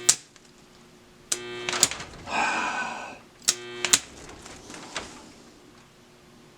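Stick welder arc being struck on thin pipe in short tries: sharp clicks of the rod tapping the work, two brief buzzes, and one crackling arc lasting under a second, the arc failing to hold as the rod sticks.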